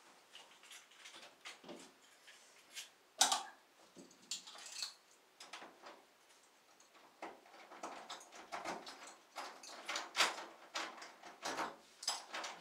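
A door's knob and lock being worked by hand: scattered clicks and rattles, with a sharp knock about three seconds in and busier clicking in the last few seconds.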